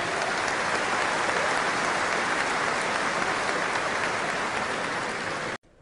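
A large crowd applauding steadily in an arena. The applause cuts off abruptly about five and a half seconds in.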